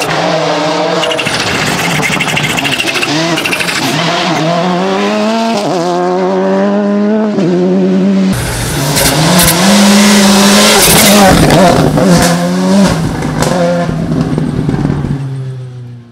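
VW Polo GTI R5 rally car's turbocharged four-cylinder engine accelerating hard on a gravel stage, its note climbing in pitch and dropping back at each upshift, with tyre and gravel noise. About halfway through there is a second, louder pass with a deeper rumble, and the sound fades out at the end.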